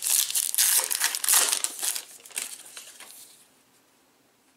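Wrapper of a baseball card pack crinkling as it is torn open by hand, dense at first and dying away after about three seconds.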